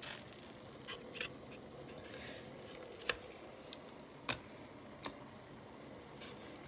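Irregular sharp clicks and taps, about seven in all with the loudest about three and four seconds in, as live crawfish are picked out of a plastic container and dropped one by one into a pot of boiling water.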